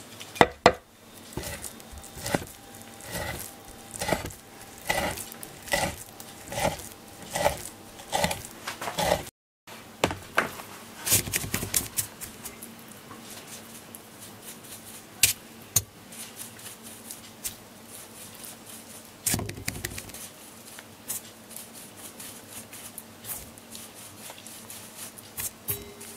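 A kitchen knife cutting through a fish fillet onto a wooden cutting board, about ten even strikes a little more than one a second. After a break, softer scattered brushing and light taps as a pastry brush dusts the fish with potato starch over a metal tray.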